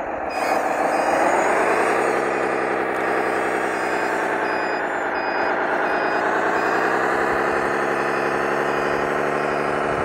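1/14-scale Stahl/Liebherr 742 electric hydraulic RC bulldozer running, a dense whining machine sound that dips and then rises in pitch about a second in before holding fairly steady. A faint high beep pulses about twice a second behind it, like a reversing alarm, as the dozer backs up.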